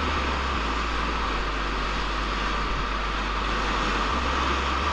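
Steady rushing of whitewater river rapids around a raft, a continuous even roar with a low rumble beneath it.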